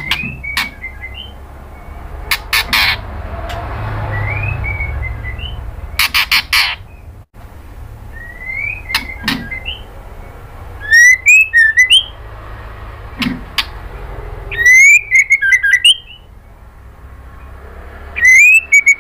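White-rumped shama calling: groups of sharp, loud clicking call notes, mixed with short rising whistles and quick chattering phrases.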